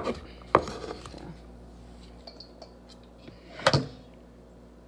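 A large kitchen knife knocking on a wooden cutting board while chopping and scooping up diced carrots: two sharp chops at the start, light scraping, then a louder clattering knock a little before the end.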